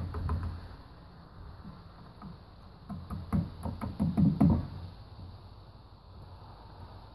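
Gloved hands pressing a rubber gasket down around the spark plug tubes of an aluminium Toyota 1ZZ valve cover: soft knocks and handling thumps, a few at the start and a denser run from about three to four and a half seconds in.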